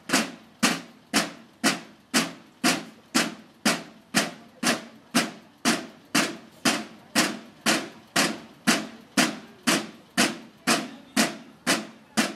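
Marching field drums played together in a steady unison beat, about two strokes a second.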